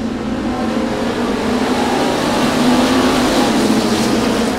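A pack of USRA Modified dirt-track race cars accelerating hard after the green flag. Their V8 engines build to a loud peak as the field passes, about three seconds in.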